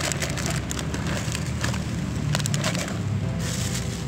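Thin plastic bag crinkling and crackling in irregular bursts as it is handled and opened, over a steady low hum.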